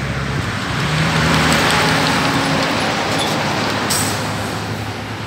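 Tractor-trailer truck's diesel engine and tyres passing on the highway. The sound swells to its loudest about two seconds in, with the engine note rising, then fades as the truck pulls away.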